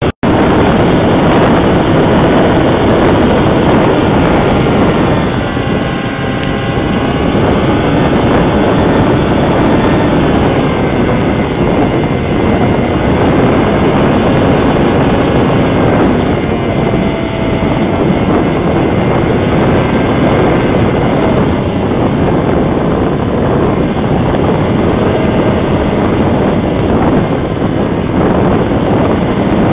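Wind buffeting the microphone, with the electric motor and propeller whine of a HobbyZone Firebird Stratos RC plane in flight. Its pitch bends as the plane passes, about six seconds in and again around seventeen seconds.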